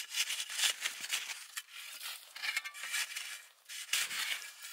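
Small snow shovel scraping and carving into the packed snow wall of a snow cave, a rapid run of short scrapes.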